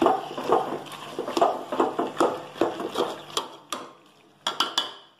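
A metal spoon scraping and clinking against a metal cooking pot as chunks of masala-coated chicken are stirred and turned, about two strokes a second. The strokes fade out near the end, followed by a few quick sharp clinks.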